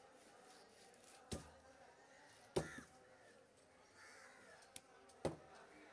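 Large curved fish-cutting knife chopping through fish onto a cutting block: three sharp chops, unevenly spaced, the middle one the loudest.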